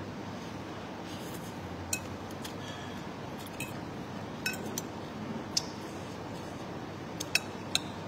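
Metal fork and spoon clinking and scraping against a noodle bowl while eating, about eight sharp clinks, three of them close together near the end, over a steady low background noise.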